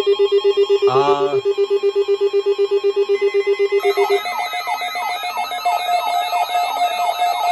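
Electronic alarm tones: a rapid beeping tone, about eight beeps a second, stops about four seconds in. A warbling alarm takes over, a steady higher tone with repeated pitch sweeps about twice a second.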